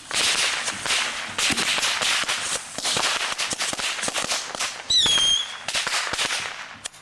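A firework burning with a continuous hiss and dense rapid crackling, and a short high whistle that dips in pitch about five seconds in.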